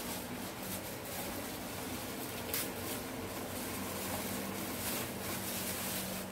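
Handling and rustling of packaging inside a cardboard box while a small speaker is lifted out, with one short click about two and a half seconds in, over a steady hiss and low hum.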